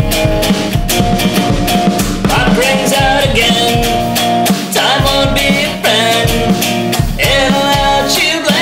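Rock song playing: drum kit and electric guitar, with sung vocal phrases coming in about two seconds in and recurring.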